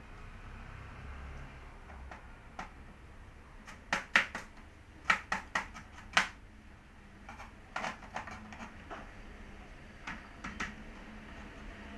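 Kitchen knife chopping carrot on a plastic cutting board: irregular groups of sharp knocks with short pauses between them, the loudest run about halfway through.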